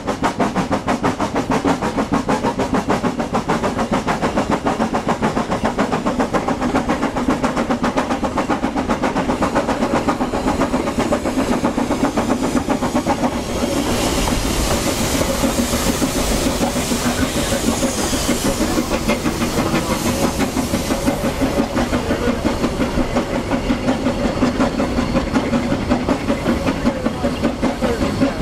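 Narrow-gauge steam locomotive running slowly with a regular rhythmic chuffing and wheel clatter on the rails. A high steam hiss rises over it for several seconds midway.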